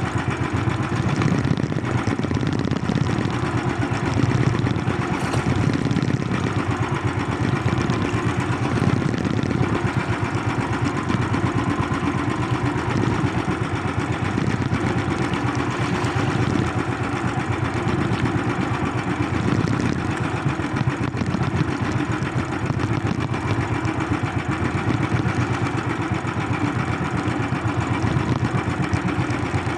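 Small engine running steadily at an even speed, a continuous low rumble.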